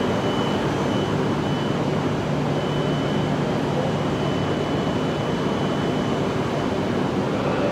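Tohoku Shinkansen E5-series bullet train running along the platform: a steady rumble of rolling stock with a low hum and a faint high whine.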